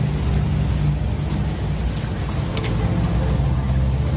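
Steady low rumble of road traffic, with a couple of light clicks about two to two and a half seconds in.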